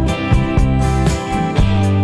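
Background music: an upbeat guitar-led track with a steady beat.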